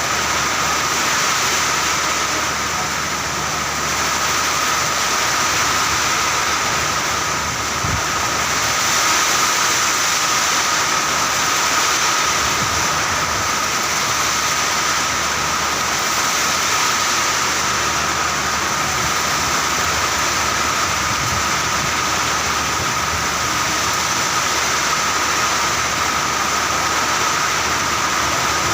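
Heavy rain falling steadily, a dense even hiss with a low steady hum underneath.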